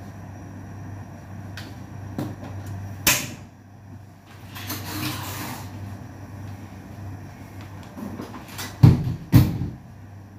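A gas stove burner being lit under a wok: a sharp click, then a short rush of gas a second or so later. Two loud knocks near the end, over a steady low hum.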